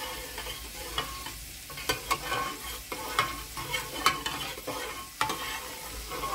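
A metal spoon stirring thick dal in an aluminium pot, scraping and knocking against the pot in irregular clicks, a few each second.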